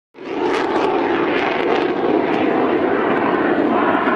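Saab JAS 39 Gripen fighter jet flying a display, its engine noise a steady, dense rush that fades in just after the start.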